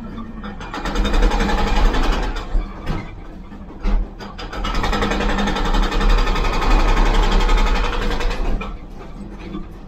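Excavator-mounted hydraulic breaker hammering rapidly into brick and concrete, heard from inside the cab over the excavator's engine. The hammering comes in two spells with a short break after about three seconds, and it stops near the end.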